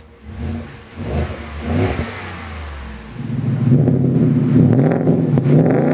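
Ford F-150's 5.0L Coyote V8 through a Proven Ground 3-inch single side-exit cat-back exhaust with a polished tip, an aftermarket exhaust louder than stock. A few short revs, then it runs louder and steadier from about three seconds in.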